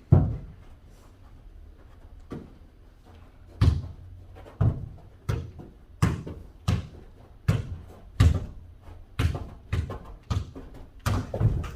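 A jokgu ball being kicked and bouncing during a foot-volleyball rally: a string of sharp thuds, one at the start, then a quick run of about a dozen from a few seconds in, about one every half to three-quarters of a second.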